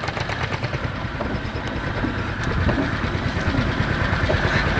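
Single-cylinder two-stroke hot bulb engine of an HSCS G-35 tractor running at a steady idle, a fast, even train of low thumps.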